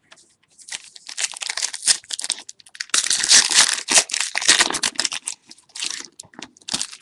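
Trading cards and their plastic packaging handled close to the microphone: a run of rustling and crinkling, busiest in the middle.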